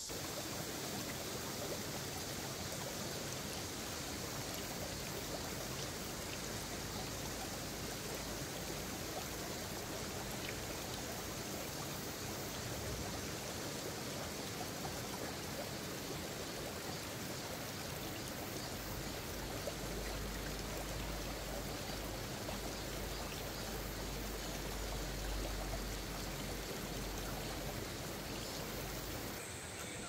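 Mountain stream flowing over boulders: a steady, even rush of water.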